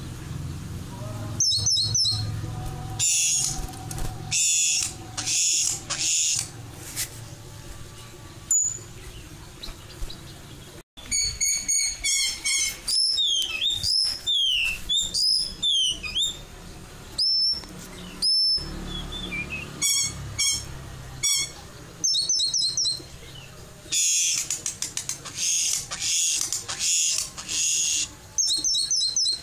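White-crowned forktail (meninting besar) calling over and over: thin, high-pitched whistles, quick runs of short repeated notes and harsh hissing screeches, with a few falling whistled slides in the middle.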